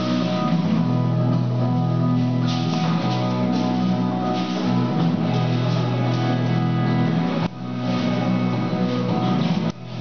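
Dance music with guitar and drums playing steadily, dipping briefly twice near the end.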